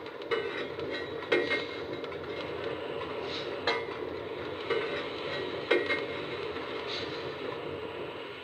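Lionel Vision Line auxiliary water tender's onboard sound system playing its loading sound effect through the model's small speaker: a steady hiss with sharp metallic clanks every second or so.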